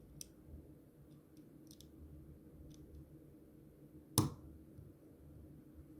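Small, light clicks of a replacement part and tools being handled on an opened iPhone 4S, with one louder, sharp click a little past four seconds in.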